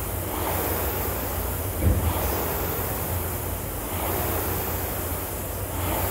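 Concept2 air rowing machine's fan flywheel whooshing hard, swelling with each stroke about every 1.7 to 1.9 seconds at a fast rate of about 34 to 35 strokes a minute. There is a short thump about two seconds in.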